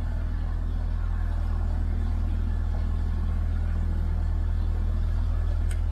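A narrowboat's inboard diesel engine running steadily while the boat is under way: an even, low rumble with a steady hum above it.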